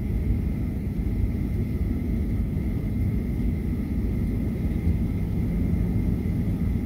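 Cabin noise of a Boeing 737-900ER taxiing, with its engines at idle and a steady low rumble and a faint, steady high whine.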